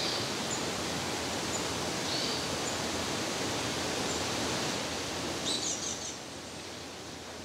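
Outdoor woodland ambience: a steady rushing hiss with scattered short, high bird chirps, and a quick flurry of chirps about five and a half seconds in.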